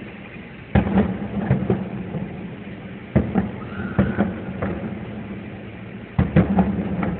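Fireworks shells bursting, heard from inside a car: sharp booms about a second in, around three and four seconds in, and again near the end, with crackling after them, over the steady hum of the car's idling engine.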